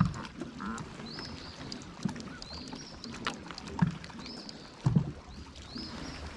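Small waves lapping against the boat hull in uneven, hollow slaps about once a second. A high chirp repeats about once a second behind them.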